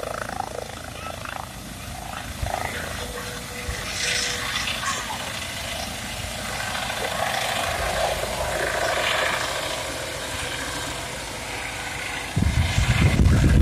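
Air ambulance helicopter lifting off: a steady rushing rotor and engine noise with a faint steady hum. About twelve seconds in it turns suddenly into a much louder low rumble as the helicopter climbs overhead.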